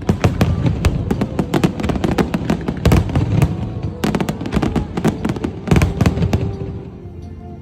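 Aerial fireworks going off in rapid, overlapping volleys of sharp bangs and crackles, thinning out near the end, with music playing underneath.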